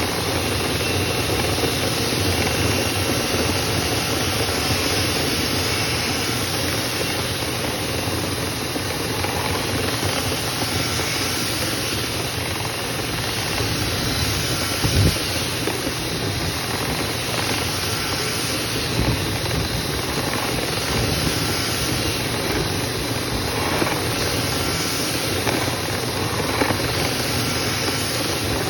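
Dryer vent cleaning equipment running steadily: a continuous motor noise with a faint high whine, and one brief knock about halfway through.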